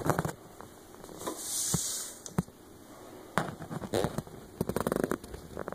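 Irregular clicks, knocks and crackling, with a short hiss about one and a half seconds in: handling noise from a handheld camera being moved around a cluttered desk.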